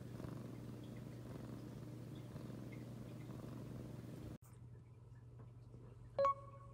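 Tabby-and-white kitten purring steadily as it dozes, cut off abruptly about four seconds in. Near the end a short, clear tone sounds once.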